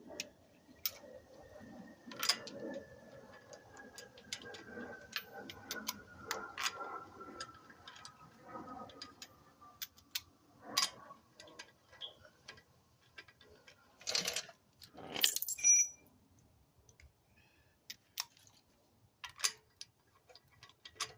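Steel lug bolts being threaded by hand into a car's wheel hub, with scattered light metallic clicks and clinks and a few louder rattles about fourteen to sixteen seconds in.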